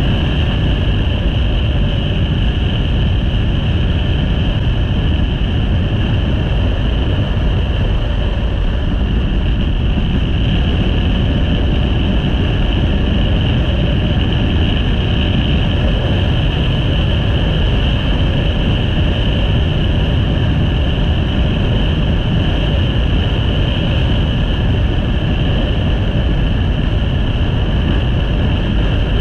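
Steady rush of wind and engine and road noise from a motorcycle cruising at a constant speed of about 56 mph, heavy at the low end with a steady higher hiss above it.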